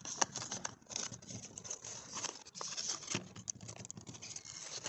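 Small cardboard parts box being opened by hand: flaps pulled back and the packaging inside handled, an irregular run of light rustles, scuffs and ticks.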